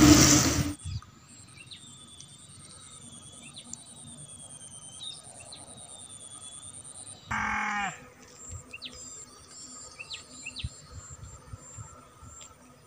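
Rural outdoor ambience: scattered short bird chirps over a steady high insect drone, with one louder short animal call about seven seconds in. The first second is the tail of the loud frying sound from the pan.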